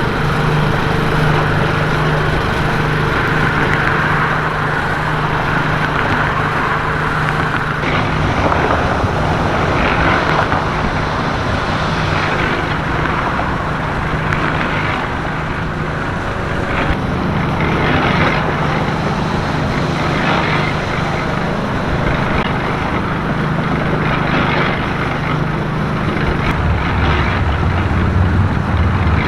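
Road traffic: vehicle engines running and passing, with a steady low engine hum that comes and goes and a deeper rumble near the end.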